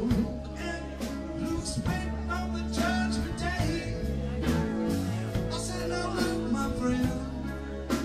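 Live rock band music with a steady beat, played on keyboards, electric guitar, harmonica, bass and drums.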